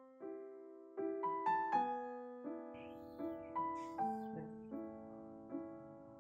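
Background piano music: a gentle melody of single notes, each struck and left to ring and fade.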